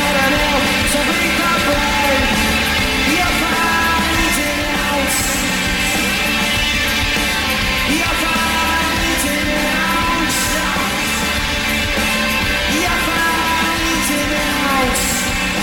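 Live rock band playing: electric guitars, bass guitar and drums, with a male lead vocalist singing over them.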